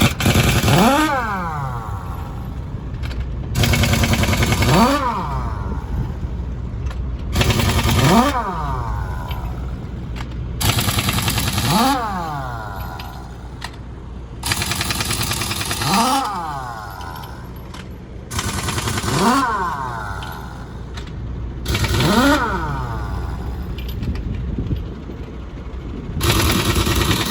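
Pneumatic impact wrench working the wheel nuts of a MAN truck wheel: about eight short bursts of hammering, a few seconds apart, each followed by a rising whine as the nut spins free.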